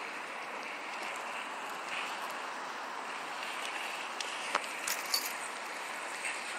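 Steady outdoor background hiss, with a few brief sharp clicks between about four and a half and five seconds in.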